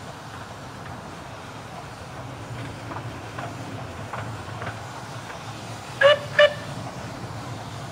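Steam locomotive whistle giving two short blasts about six seconds in, over the steady low rumble of a 15-inch gauge train running.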